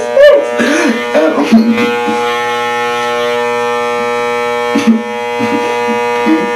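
Electric hair clippers running with a steady buzzing hum, with a voice sounding briefly over it at the start and again near the end.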